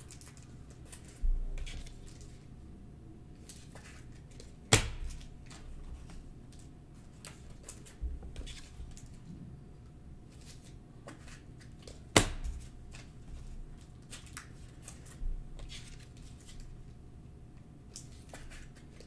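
Clear plastic trading-card pack wrapper crinkling as fingers pick at it and peel it open, with scattered small crackles, two sharp snaps about five and twelve seconds in, and a few soft thumps.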